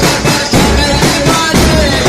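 Music from a Shia Muharram lament (latmiya): a steady, heavy percussion beat at about two strikes a second over a deep bass.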